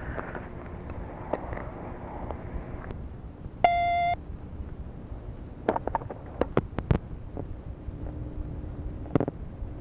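Tape answering machine recording: steady tape and phone-line hiss, broken a little over three seconds in by one loud half-second beep, the machine's tone before the next message. Several sharp clicks follow on the line.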